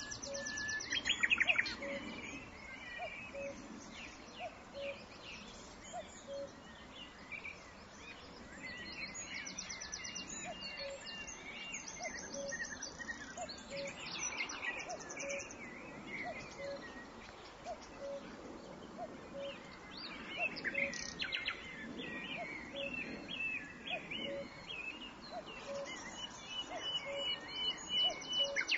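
Several songbirds singing and calling together, with varied chirps and high rapid trills. Under them, a short low note repeats steadily about every 0.7 seconds.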